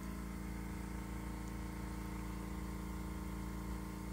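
Room tone: a steady low hum with a few faint steady tones and no distinct sounds.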